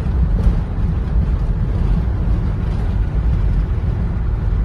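Steady low rumble of a car on the move, heard from inside.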